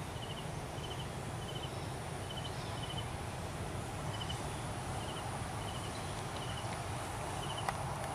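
Steady outdoor background noise with a faint high chirp repeating every second or so, each chirp a quick run of four or five pulses.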